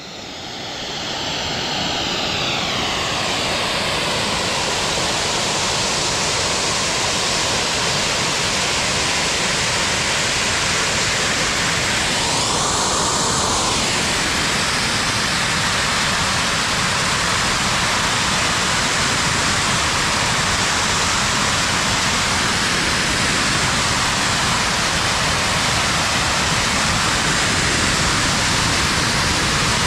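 A lone large geyser vent blasting steam with a steady, deafening hiss that builds over the first couple of seconds. The hiss swells briefly about twelve seconds in.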